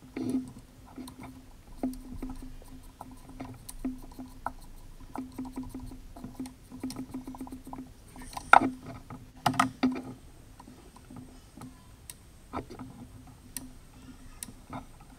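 Hand tools clicking and tapping on metal as a 16mm starter-motor bolt is undone in a VW Up's engine bay, with a few louder metallic clanks just past the middle.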